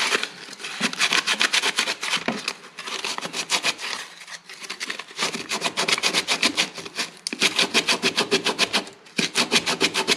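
Sandpaper rubbed by hand on the rough freehand-cut end of a wooden baseboard, smoothing it: quick back-and-forth strokes, about five or six a second, in several runs with short pauses between them.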